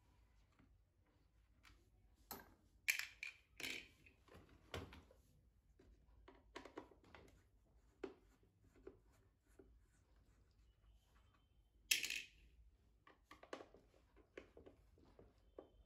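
Screwdriver working screws out of the back panel of a subwoofer cabinet: faint clicks and scratches, with a few louder short scrapes a few seconds in and another about three-quarters of the way through.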